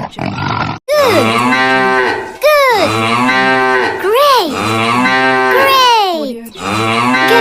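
A cow mooing over and over as a notification ringtone: about four loud, drawn-out moos, each opening with a swoop in pitch and then held, with short breaks between them.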